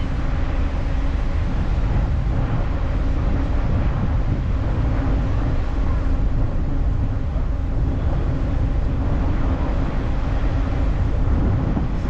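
Wind buffeting the microphone over the steady low rumble of a ferry under way.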